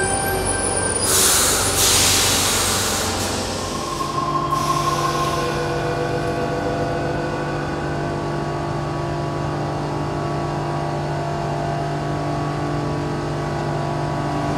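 Double-deck electric suburban train standing at an underground platform: two loud hisses of air about one and two seconds in, then the train's steady electrical hum with several held tones. Another loud burst of hiss comes at the very end.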